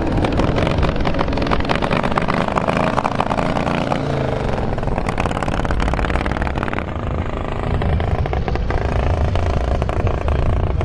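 Pre-war motorcycle engines running loud with rapid exhaust pulses as the bikes pull away from a drag-race start; the sound eases a little about seven seconds in, then builds again.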